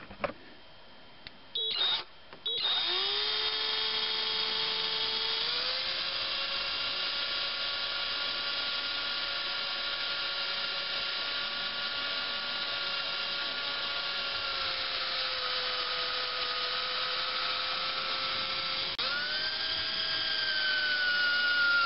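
Electric drill with a small bit (about 3/32 inch) drilling a pilot hole through the thin metal face of a leaking oil seal. A couple of short trigger taps, then a steady motor whine from about three seconds in that rises in pitch as it spins up, steps higher a little later, dips slightly and picks up again near the end.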